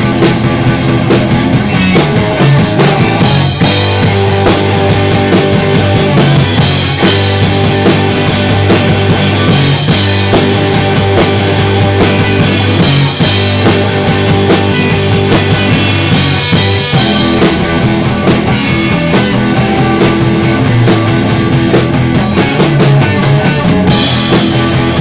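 Rock band playing loud, with drum kit and guitar over a sustained low bass note that drops away about two-thirds of the way in.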